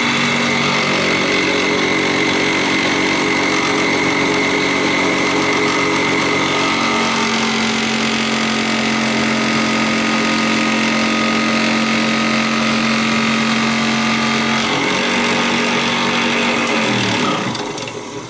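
Bench drill press motor running steadily while a spade bit with a poorly sharpened edge bores a shallow recess into a block of hardwood. A little before the end the motor is switched off and winds down, its pitch falling.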